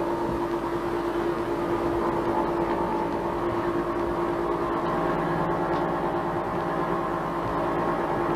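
Steady machinery hum with several held tones over a rumble: the sound of large machines running in a machine room.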